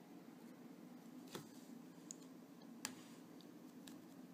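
Near silence with a low room hum and a handful of faint clicks as the hard plastic toy blaster is handled.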